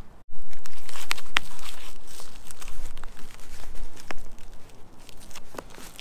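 Heavy fabric light bar cover rustling and crinkling as it is pulled over a roof-mounted light bar and pressed into place, with several sharp clicks mixed in. The handling is loudest just after a brief drop-out at the start, then gradually quietens.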